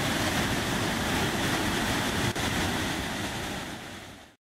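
Waterfall on the Río Santiago at El Salto rushing steadily, a wide, even roar of falling water. It fades and cuts off abruptly just before the end.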